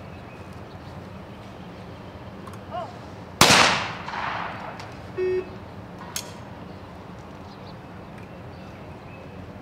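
A single shotgun shot fired at a clay target, a sharp loud crack whose echo dies away over about a second. About two seconds later comes a short electronic beep, then a fainter crack.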